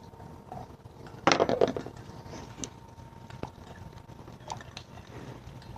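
Light metallic clinks and clatters as the loosened negative battery cable clamp is worked off the battery post, with a short cluster of knocks about a second in and a few single ticks after.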